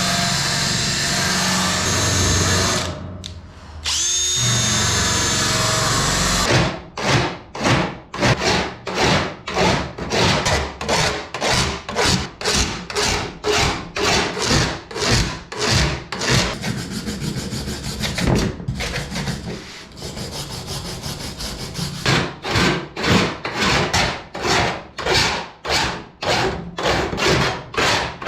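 Dremel rotary tool running on aluminium, stopping briefly and spinning back up with a rising whine. It gives way to a hand file rasping back and forth in even strokes about two a second, deburring the lightening holes in an aluminium wing spar.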